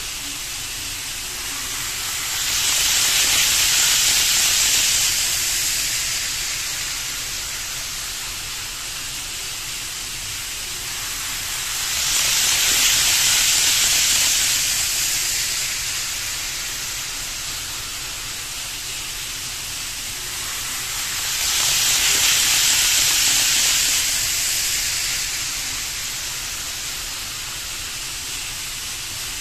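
N gauge model of a 500 series Shinkansen running on model track, its wheels and motor making a light rolling hiss. The hiss swells three times as the train passes close, about every nine to ten seconds, and falls back to a fainter steady hiss in between.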